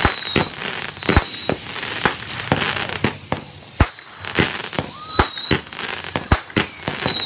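Fireworks going off in quick succession: about six high whistles, each dropping slightly in pitch and then holding for about half a second, mixed with a run of sharp bangs.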